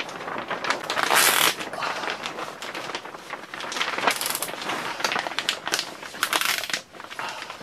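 Clear plastic greenhouse sheeting crinkling and crackling as hands work it around a dome hub and fasten it with zip ties. The crackle is irregular, with a few louder bursts about a second in, around the middle and near the end.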